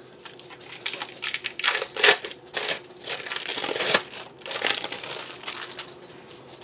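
Kitchen handling noise: a run of clinks, clatters and rustles as dishes and utensils are moved about on a wooden counter, loudest about two and four seconds in.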